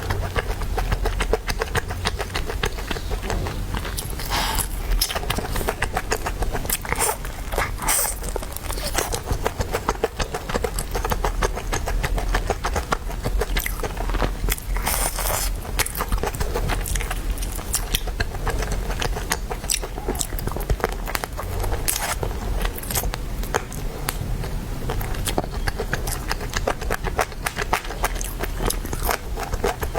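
Close-miked eating of chicken: a continuous run of wet chewing, biting and small crunchy clicks, with a steady low hum underneath.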